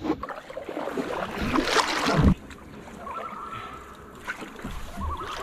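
Canoe paddle strokes through lake water, with a loud splashing, rushing stroke about two seconds in, then quieter water sounds.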